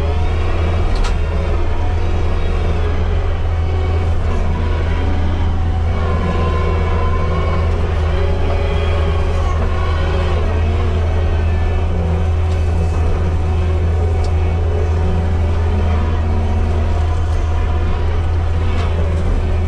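Kubota SVL75-2 compact track loader's diesel engine running steadily under work, a strong low drone with faint wavering whines above it.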